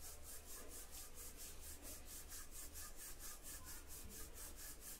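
Faint rubbing of a wooden rolling pin rolling out a round of flour dough on a stone countertop.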